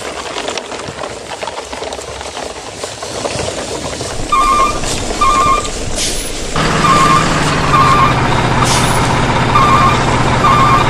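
Electronic truck reversing-alarm beeps, short pulsed beeps repeating in groups, starting about four seconds in. A steady low truck-engine hum joins at about six and a half seconds and carries on under the beeps.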